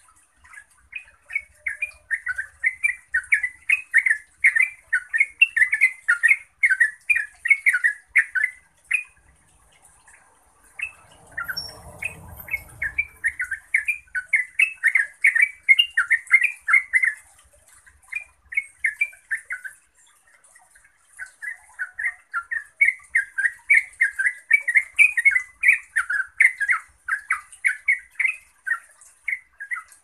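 Yellow-vented bulbul (trucukan) singing its long, rapid 'ngeropel' song: long runs of fast notes, broken by short pauses about a third and two-thirds of the way through. A brief low rustle about twelve seconds in.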